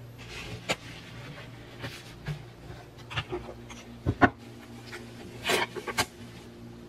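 Eggs and a plastic yogurt cup being handled and set down on a wooden desk over a paper towel: a few light knocks and clicks, the loudest about four seconds in, with the paper towel rustling around five and a half seconds.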